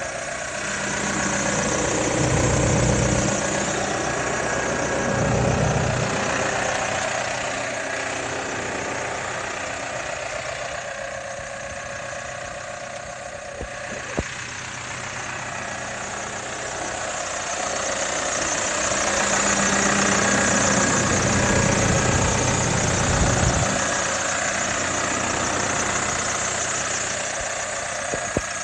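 Case JXU95 tractor's diesel engine running steadily, growing louder twice for a few seconds, with a single sharp click about halfway through.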